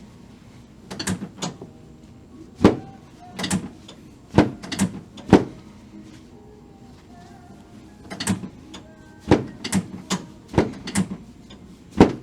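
Chiropractic adjusting on a treatment table: about a dozen sharp knocks and clacks in two bunches, one in the first half and one in the second.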